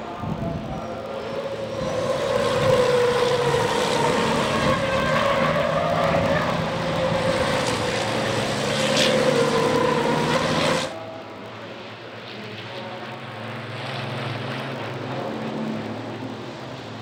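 Diesel race truck engines running hard at high revs as the trucks pass close by, the engine note wavering up and down. About eleven seconds in the sound cuts off suddenly to a quieter, lower engine sound from trucks further away.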